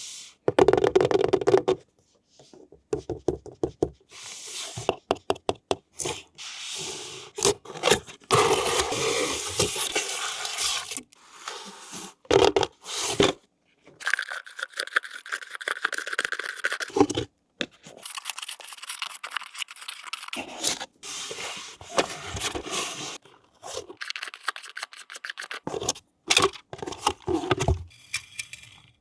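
Toy packaging being handled during an unboxing: scraping, rubbing and tearing sounds in a string of irregular bursts and clicks, with short pauses between them.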